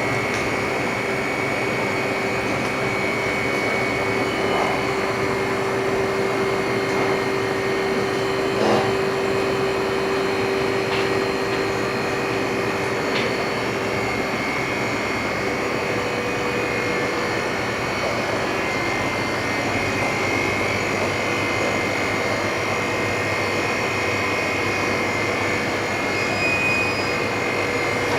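LCD freezer machine's refrigeration unit running steadily while it chills an LCD screen on its cooling plate: an even hum and fan noise with a few thin, steady whining tones. A couple of faint clicks about nine to thirteen seconds in.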